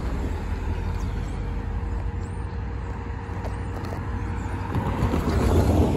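Minivan driving over a railroad grade crossing, its road noise swelling near the end over a steady low rumble.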